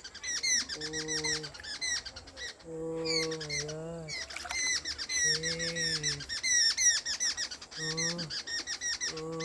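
Birds chirping densely and rapidly throughout, with a low, drawn-out voice-like 'ohh' sounding four times.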